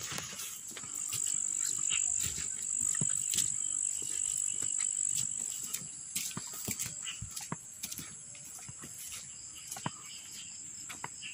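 Footsteps on a dirt path, brushing through grass, over a steady high-pitched insect trill.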